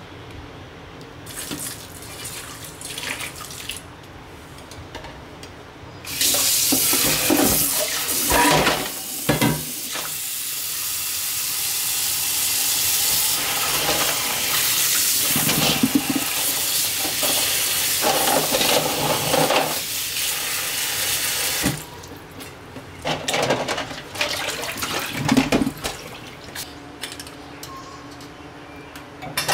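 Water running into a stainless steel bowl of whole abalone in their shells, starting about six seconds in and stopping suddenly some fifteen seconds later. Before and after it, shells knock against the metal bowl as the abalone are handled.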